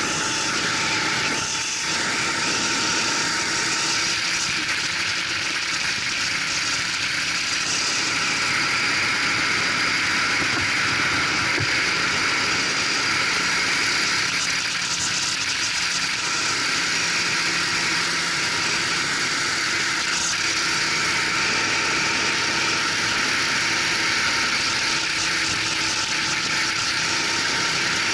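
Racing kart engine running at speed, heard from on board the kart over a thick rush of wind and road noise. The note stays steady, with no big revs up or down.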